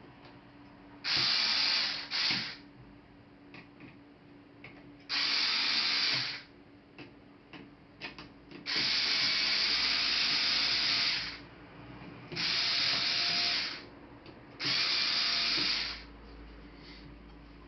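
Electric screwdriver running in five bursts of one to two and a half seconds, driving screws in a laptop case, with small clicks of handling between the bursts.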